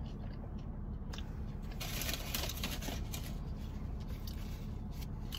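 Close-up eating sounds while food is chewed, with a burst of crackling noise about two seconds in and scattered small clicks, over a steady low hum.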